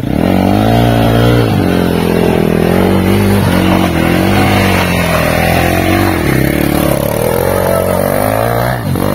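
Off-road motorcycle engine revving hard under load, its pitch rising and falling again and again as the rider works the throttle to get through a trail obstacle.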